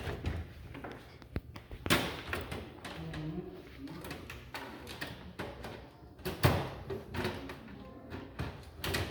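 Knocks and clatter of hardware being handled inside a desktop computer case, with sharper knocks about two seconds in, about six and a half seconds in, and near the end.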